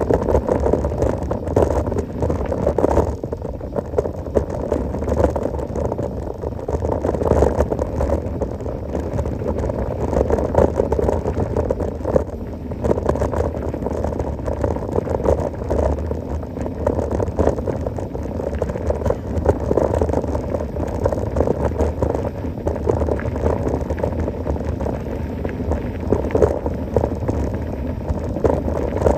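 Mountain bike rattling over a rough dirt trail at speed: continuous tyre and frame noise with many small irregular knocks and clatters.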